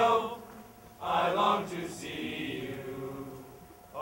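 A mixed chorus of young men's and women's voices singing together. A phrase ends just after the start, then a long held line fills the middle, and a new phrase swells in at the end.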